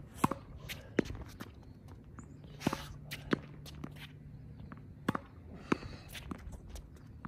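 Tennis ball being rallied against a practice wall: sharp knocks of racket strings on the ball, the ball hitting the wall and bouncing on the hard court, with shoe scuffs and footsteps on the court between strokes.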